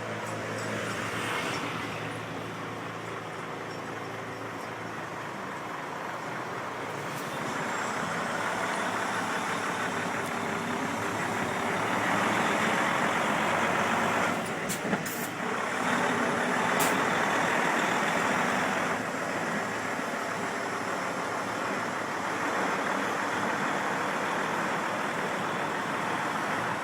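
Heavy tractor-trailer carrying a Shinkansen car, its diesel engine running as it moves slowly, louder for several seconds in the middle, with a few short sharp clicks.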